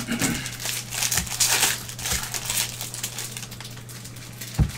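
Gloved hands crinkling a 2021 Bowman baseball card pack wrapper and riffling through a stack of cards: an irregular rustling crackle in bursts, with one sharp knock near the end.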